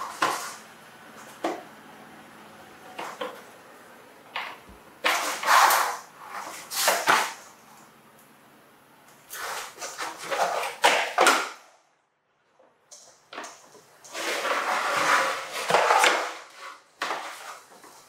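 Plastic toy dump truck clattering and scraping on a wood floor in irregular bursts, with a few sharp knocks, as a baby monkey pushes and tips it.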